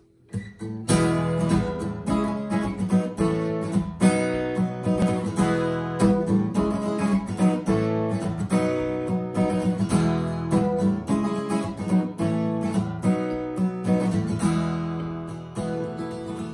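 Acoustic guitar strummed in a steady rhythm, playing the song's instrumental intro. It starts about a second in.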